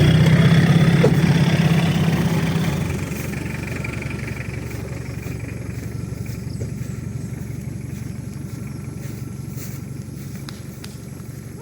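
Off-road 4x4's engine running, loud for the first three seconds or so, then dropping away and fading steadily.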